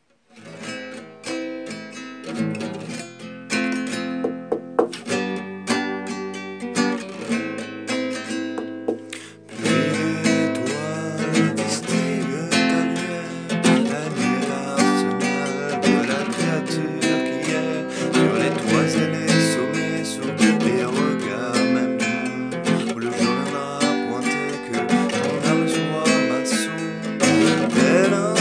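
Acoustic guitar played solo as the song's instrumental opening, starting about half a second in. After a short dip about nine and a half seconds in, the playing turns fuller and strummed.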